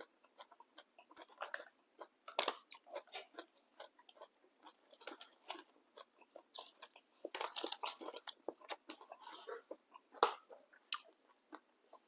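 A person chewing a mouthful of boat noodles with blanched water spinach: an irregular run of wet mouth clicks and small crunches, busiest a little past the middle.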